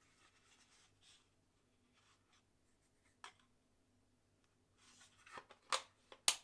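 A few light clicks and knocks from a plastic bit case being handled: one short click about three seconds in, then several more near the end, the last the loudest.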